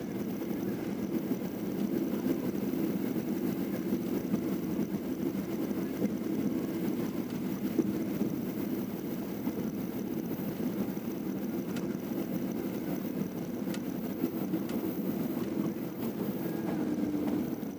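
Steady engine and road rumble heard from inside a moving vehicle.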